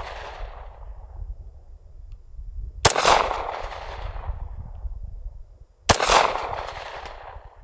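Two shots from a 9mm Sig Sauer P226 Legion pistol, about three seconds apart. Each sharp crack is followed by a long echo rolling off across the range.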